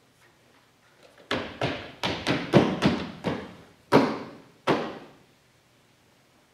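A quick, irregular run of about ten loud thuds over three and a half seconds, each ringing out briefly in the hall.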